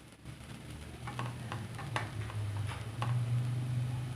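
A few light, separate clicks and taps of a utensil against a cooking pot as fresh coriander leaves are added to cooked rice, over a low steady hum.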